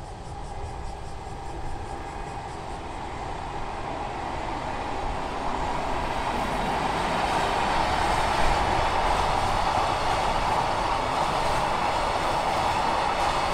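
EF81 electric locomotive and its container wagons rolling across a bridge: the running noise grows louder over the first half as the train draws near, then holds steady as the wagons pass.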